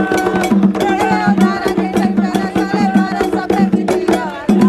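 Atabaque hand drums beaten in a fast, steady rhythm, with a group of voices singing a ponto (sacred chant) over them.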